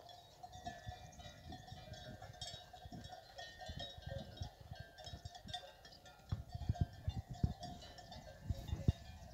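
Cowbells clanking and ringing irregularly among a herd of cattle, with a run of low thumps about six seconds in.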